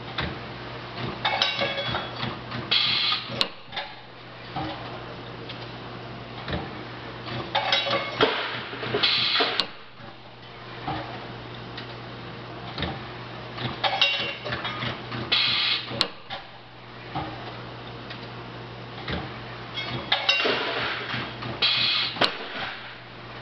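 A 300 kVA full-automatic brake-shoe seam welding machine runs through repeated weld cycles, about one every six and a half seconds. Each cycle is a couple of seconds of crackling weld and mechanism noise ending in a sharp click, over a steady electrical hum.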